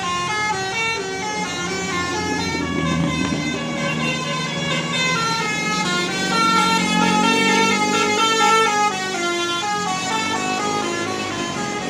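Bus telolet horn: a multi-tone musical horn playing a melody of stepped notes without a break, over the bus's engine.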